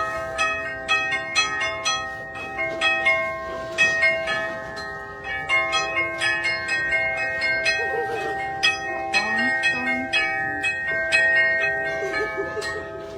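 Orthodox church bells of several different pitches rung by hand, struck several times a second in a quick, uneven pattern, each stroke ringing on and overlapping the next.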